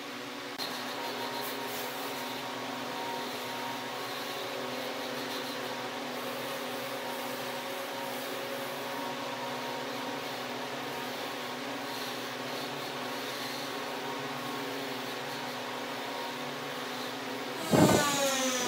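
Steady machine hum holding several even tones over a hiss, like a fan or motor running. Near the end a much louder noise with falling tones cuts in.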